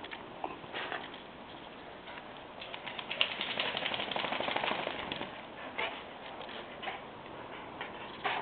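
A Chinese Crested Powderpuff dog's claws clicking rapidly on a tile floor as it trots, in a dense run lasting about two seconds midway, with a few single clicks before and after.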